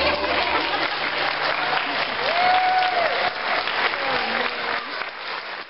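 Audience applause: dense clapping that dies down near the end, with one voice calling out briefly about two seconds in.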